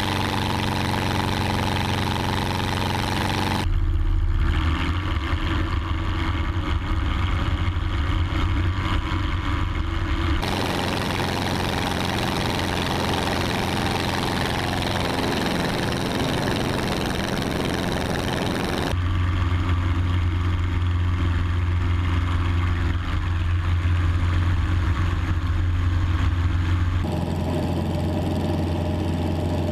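Single-engine propeller plane's piston engine running steadily as the plane rolls along the runway. Its tone changes abruptly several times.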